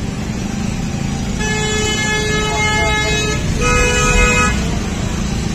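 Vehicle horn honking twice over a steady low rumble of road traffic: a long honk of about two seconds, then a shorter one at a slightly higher pitch.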